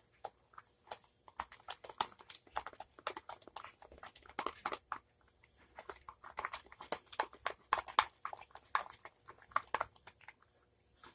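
Freshly activated glue-and-laundry-detergent slime being stirred and worked in a bowl: a run of irregular wet sticky clicks and smacks. The slime is still very sticky, only partly set by the detergent.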